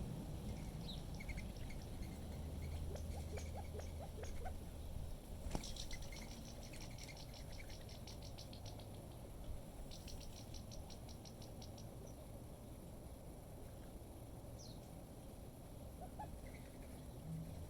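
Small backyard birds chirping, with two rapid high trills of evenly spaced notes in the middle, over a low rumble of wind on the microphone. A single sharp tap about five and a half seconds in.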